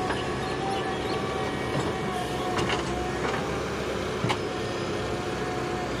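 JCB 3DX backhoe loader's diesel engine running steadily under load, with a steady whine from the hydraulics as the backhoe arm swings and digs into wet mud. A few sharp knocks of the bucket and linkage come around the middle.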